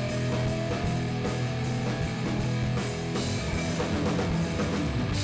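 Rock music soundtrack with guitar and drums, playing steadily.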